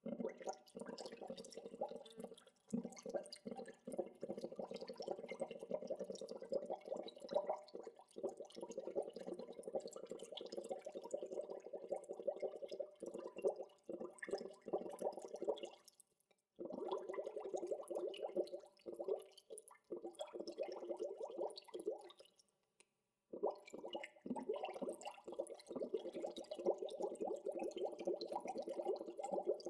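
Bubbling water: a dense, continuous stream of small bubbles popping and gurgling, dropping out briefly twice in the second half.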